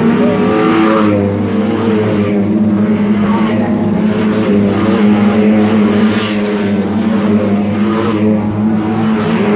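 A pack of Lightning Rod oval racing cars running at speed round the bend, several engines sounding together in one loud, steady din.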